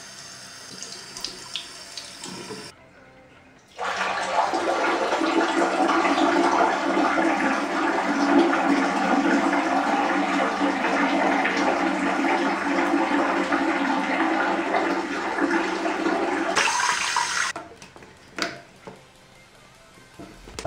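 Bathroom sink tap running over a hand into a tiled basin. It starts as a light flow, then becomes a full, steady rush of water from about four seconds in until it is shut off about seventeen seconds in.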